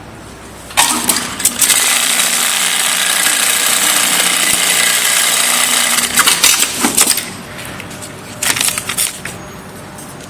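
Industrial automatic pattern sewing machine running a stitch cycle: a loud, continuous rapid stitching racket for about five seconds, then two short bursts of mechanical clattering as it finishes and moves, over a steady low motor hum.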